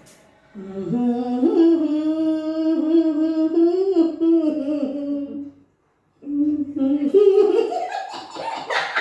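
A woman's voice humming one long held note with a few small steps in pitch for about five seconds, the sound of someone being tickled and holding back laughter. After a short break, a second hum rises in pitch and breaks up near the end.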